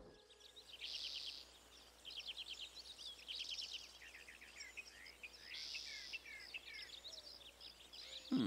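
Faint birdsong: birds chirping in quick runs of short high notes, with a few brief buzzy trills.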